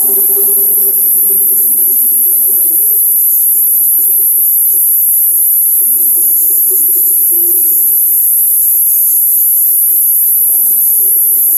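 Steady, loud, high-pitched electronic hiss from the recording chain, with a faint low murmur underneath.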